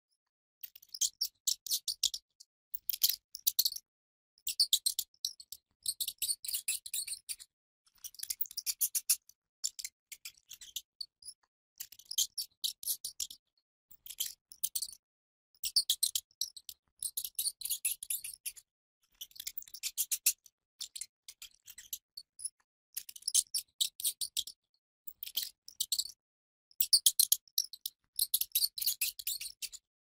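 Rat sounds: short bursts, each about a second long, of fast high-pitched clicking squeaks, repeated with brief pauses between them.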